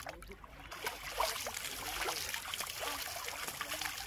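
Water trickling and splashing in shallow pond water as a cast net's rope is hauled in by hand, with small splashes and drips. The water sound starts a moment in.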